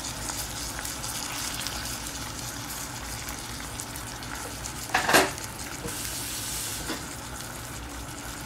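Jaggery syrup bubbling and sizzling in a pan while a wooden spatula stirs mashed dal into it, with a louder scrape of the spatula against the pan about five seconds in.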